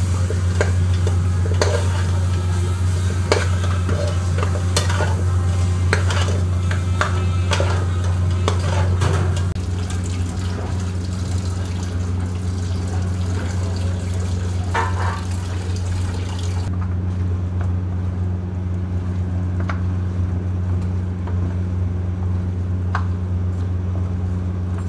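A metal spoon stirring and scraping chunks of raw goat meat in a large aluminium pot, with frequent clinks, over a steady low hum. After about ten seconds the clinks thin out to a few now and then.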